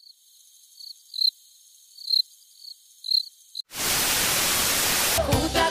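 Crickets chirping, a thin high chirp repeating every half second or so, used as an awkward-silence effect. About two-thirds in it cuts to a sudden loud hiss of TV static, and music with a beat starts near the end.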